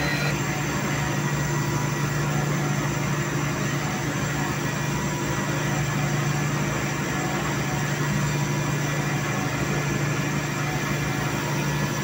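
Machine tools running in a factory machine shop: a steady, even hum that does not change.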